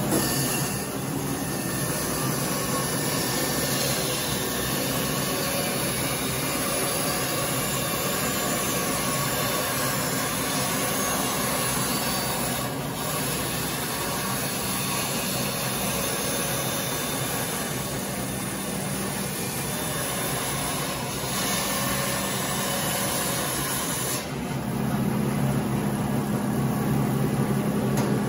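JET bandsaw ripping a wooden hatchet-handle blank lengthwise, a steady motor hum under the hiss of the blade cutting through the wood. About 24 s in the cut finishes and the saw runs on free with a plainer hum until it is switched off at the very end.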